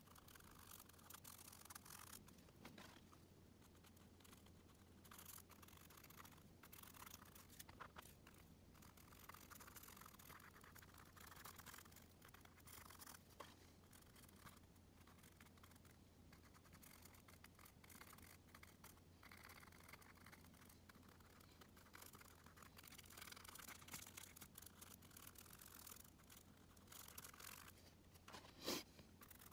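Faint, irregular scratchy swishes of a small paintbrush dabbing and dragging paint across a painting surface, over a low steady hum. A sharp click comes near the end.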